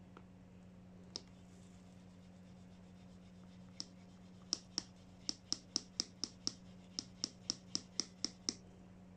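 Milk being frothed in a French press, the plunger pumped up and down with a sharp click on each stroke. After two lone clicks, a steady run of about four clicks a second lasts some four seconds.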